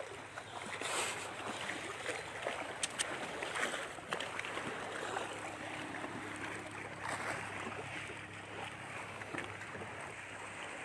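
Steady outdoor hiss with wind on the microphone; a faint low hum joins about five seconds in.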